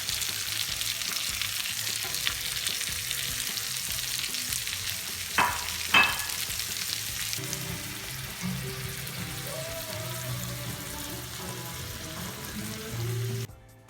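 Steak, mushrooms and onions sizzling in butter in a frying pan, with two sharp knocks about five and six seconds in. The sizzle cuts off suddenly near the end.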